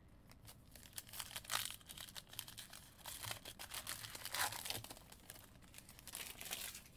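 Foil trading-card pack wrapper being torn open and crinkled in the hands: a dense crackle, louder around a second and a half in and again near four and a half seconds.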